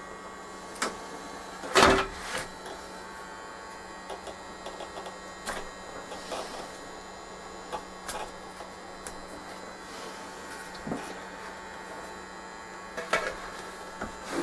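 Handling noise from pulling motor wires out from under an RC helicopter's carbon frame: scattered clicks and knocks, with a louder knock about two seconds in and a small cluster near the end, over a steady low hum.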